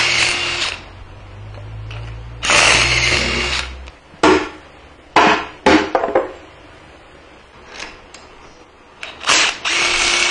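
Handheld power tool running in short bursts, with a few sharp metal clicks between them.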